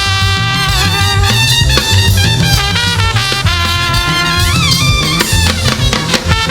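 Live gospel band music: a passage with held melody notes over a steady bass line, with no words sung.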